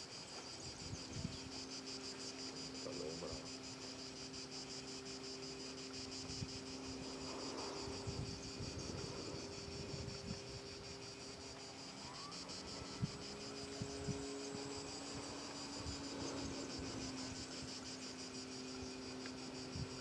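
Insects trilling steadily in a high, rapidly pulsing chorus, with a steady low drone underneath and a few soft low thumps.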